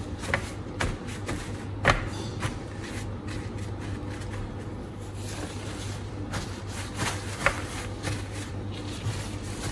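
Paper towels rustling and crinkling as hands press and pat them down over strawberries to dry them, with scattered soft taps and thuds. A steady low hum runs underneath.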